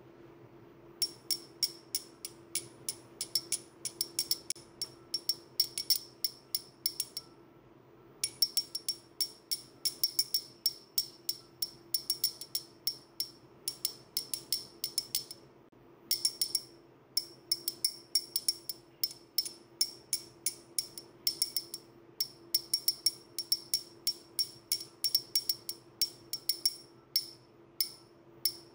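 A pair of slender metal rods tapped and clicked together close to the ear, in rapid runs of bright metallic clinks that ring at the same high pitches, several a second. The runs pause briefly about seven and fifteen seconds in, over a faint steady low hum.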